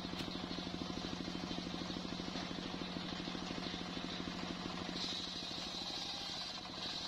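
Small stationary diesel engine running a table circular saw, with a steady fast chugging beat. About five seconds in, the blade bites into the teak log and a higher-pitched cutting hiss joins as the engine takes the load.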